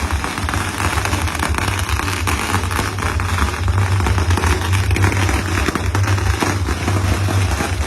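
A long run of firecrackers going off in rapid, continuous crackling, with a low rumble underneath.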